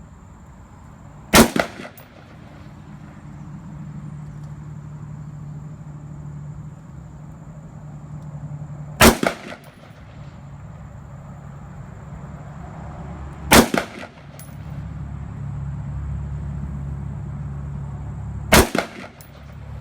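Rock River AR-15 A2 rifle in 5.56 fired four single, spaced shots, each a sharp crack with a short echo after it, several seconds apart.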